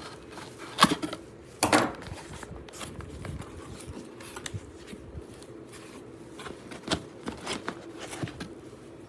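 Unpacking a power-tool box: scattered clicks, scrapes and rubbing of packaging and parts being handled, with two louder knocks about a second in and just before two seconds, and another near seven seconds.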